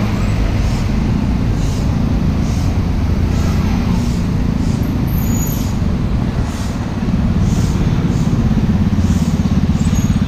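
Steady rumble of road traffic, with a small motor scooter's engine growing louder as it approaches over the last few seconds.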